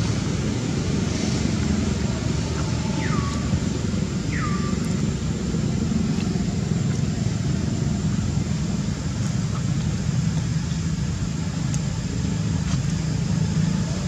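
Steady low outdoor rumble throughout, with two short, high, falling calls about three and four and a half seconds in.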